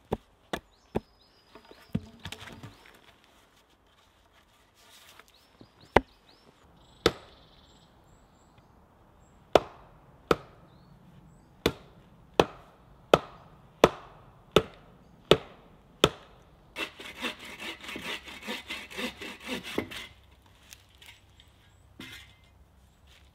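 An axe chopping into a wooden stake on a chopping block, a few sharp chops about half a second apart. Later a run of hard, evenly spaced blows about every 0.7 s on an upright stake, then about three seconds of fast rasping strokes on wood, and a single knock near the end.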